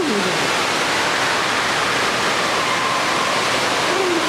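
Steady rushing of falling and splashing water filling an indoor waterpark, with faint voices just at the start and near the end.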